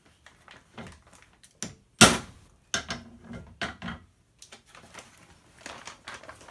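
Ball peen hammer striking a grommet kit's hole punch on a wood block to cut a hole through a plastic tarp: one hard blow about two seconds in, then a few lighter knocks. Plastic tarp rustling near the end.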